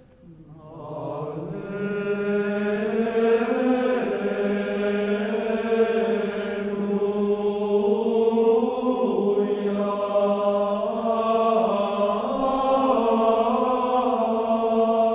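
Latin plainchant sung as one slow melodic line, with long held notes that move by small steps. The singing comes in about a second in and carries on.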